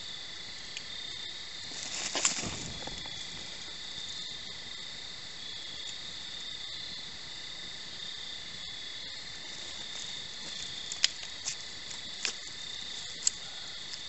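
Crickets chirring steadily in a continuous high drone, with a brief louder noise about two seconds in and a few sharp clicks near the end.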